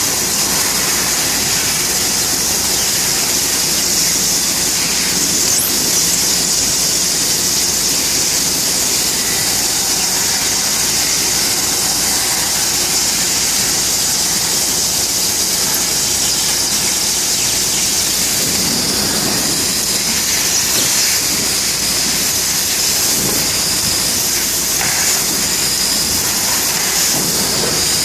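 Bystronic CNC laser cutting machine running, a steady high-pitched hiss with machine noise beneath it that does not let up.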